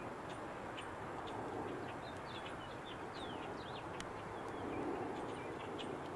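Small birds chirping repeatedly, with some quick falling notes, over a steady background rumble. One sharp click about four seconds in.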